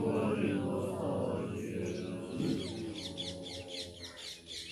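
Group chanting by a seated assembly of Buddhist monks, trailing off and fading over the first couple of seconds. Then birds chirping in quick, rapidly repeated high notes.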